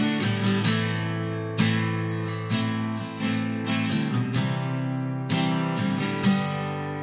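Background music: acoustic guitar being strummed and plucked in sustained chords.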